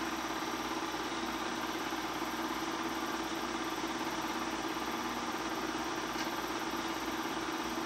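Bell & Howell 253-A 8mm film projector running steadily, a constant mechanical hum and whirr with no change.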